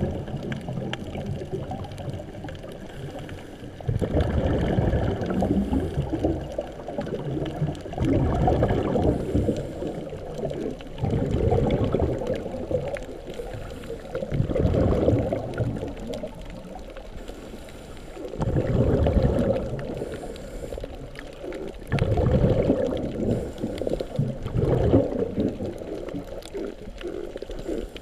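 Underwater sound in a camera housing: a scuba diver's exhaled regulator bubbles, a low muffled bubbling rush that swells about every three to four seconds with each breath.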